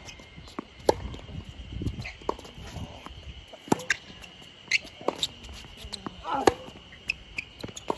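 Tennis rally on a hard court: sharp pops of rackets striking the ball and the ball bouncing, spaced about a second apart, with quick footsteps and shoe scuffs between them.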